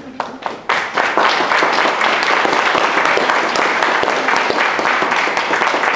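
Audience applauding: a few scattered claps, then full applause from about a second in, steady to the end.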